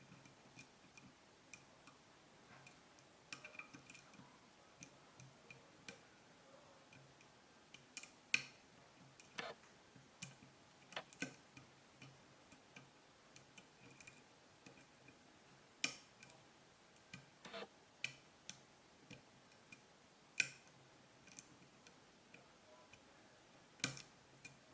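Small irregular metallic clicks and ticks of a lock pick working the pins of a dimple cylinder lock, with a few sharper clicks a few seconds apart.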